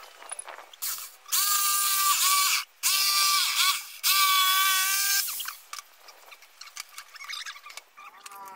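Bosch jigsaw cutting a wooden board along a clamped guide, run in three bursts about a second in and stopping after about five seconds; its motor whine dips and recovers as the blade loads in the cut.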